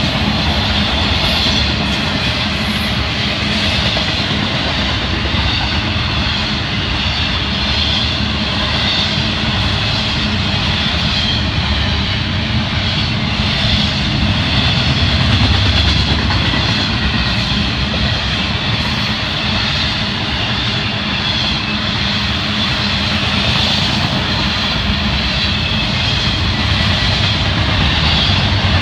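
Intermodal freight train cars, trailer-carrying flatcars and double-stack well cars, rolling past on the rails: a loud, steady rumble of steel wheels on track that keeps up without a break.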